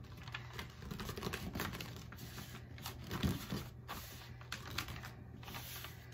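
Hands rubbing and pressing kraft paper down onto the glued back of a canvas: soft paper rustling with many small taps and crinkles.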